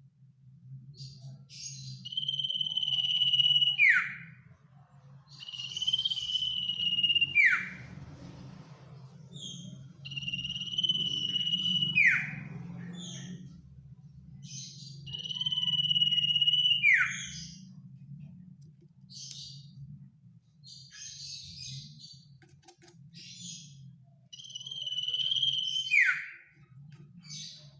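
An iora (cipoh/sirtu) singing. About every four seconds it gives a long, steady whistled note that ends in a sharp downward slur, with short high chirps between the phrases. A steady low hum runs underneath.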